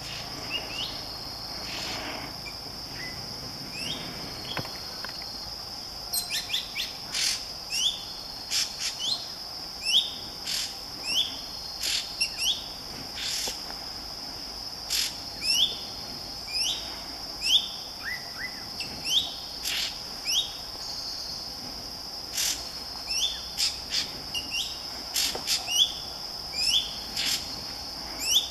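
Forest ambience: a steady high-pitched insect drone, with many short rising bird chirps repeating about once a second. From about six seconds in, sharp clicks join them.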